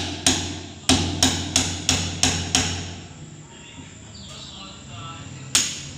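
Hammer blows on a wooden door, pounding out the hole to enlarge it for a new door knob: seven sharp strikes in quick succession, about three a second, then a pause and one more strike near the end.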